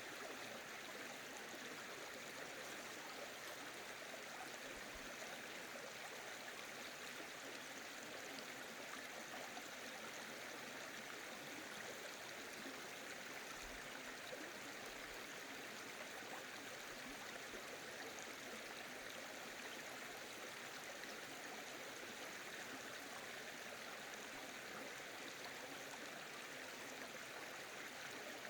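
Mountain valley stream flowing over rocks: a steady rush of running water with light gurgling.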